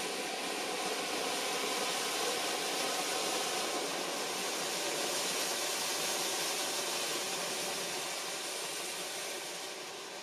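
Several Funke Silbertürme ground fountains, small F1 fireworks, spraying sparks at once with a steady hiss that begins to die down near the end as they burn out.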